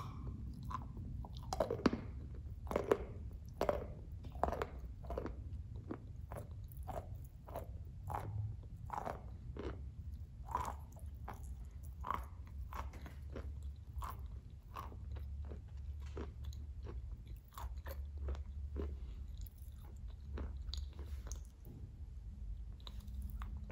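Close-up biting and crunchy chewing of a green-glazed tile with a white interior: a steady run of sharp crunches, about one or two a second, loudest in the first few seconds.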